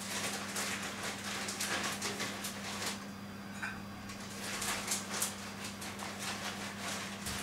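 Soft, irregular rustling and scuffing noises close to the microphone, in two spells, over a steady low electrical hum.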